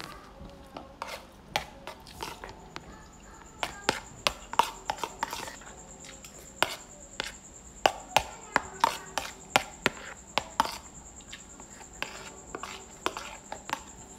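Irregular sharp clicks and light knocks, several a second at the busiest, with a faint steady high-pitched whine starting about two seconds in.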